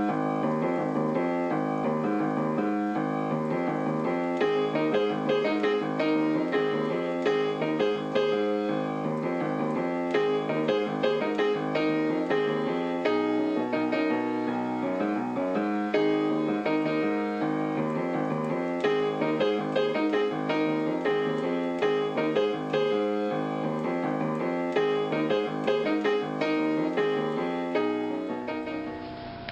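Solo piano music playing a busy run of notes throughout, fading down near the end.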